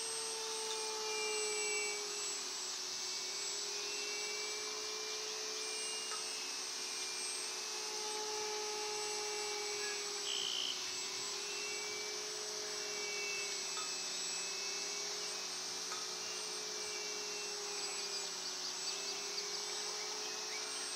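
Motor and propeller of a foam-board profile RC plane droning in flight, its pitch drifting slowly up and down as the plane circles, over a steady high hiss.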